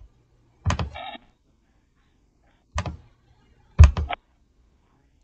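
Computer mouse clicks: a few short, sharp clicks about a second in and near three seconds, and the loudest, followed quickly by two smaller ones, about four seconds in.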